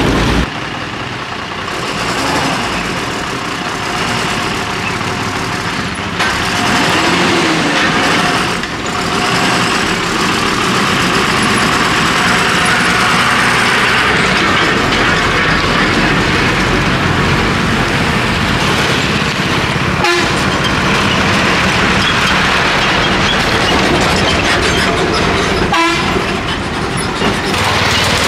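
An APSRTC Pallevelugu diesel bus running past on a dusty gravel road: dense, steady engine and tyre noise with a horn sounding at times. The sound breaks off and jumps abruptly several times between passes.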